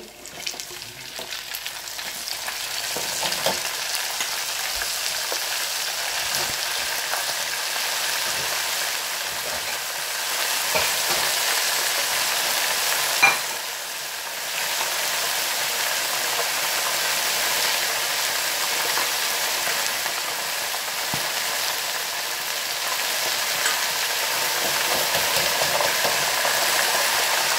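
Flour-dusted mussels deep-frying in an electric deep fryer: the oil sizzles and bubbles steadily, building up over the first couple of seconds after the basket goes in. A single sharp click about halfway through.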